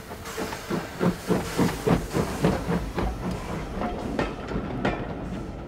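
LB&SCR 'Terrier' 0-6-0 tank locomotive working past at low speed, its exhaust beating about three times a second over a steady hiss of steam. The beats thin out after about three seconds.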